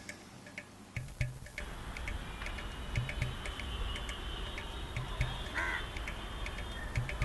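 Quiet background with scattered light clicks and ticks, and a single short bird call, like a crow's caw, about five and a half seconds in.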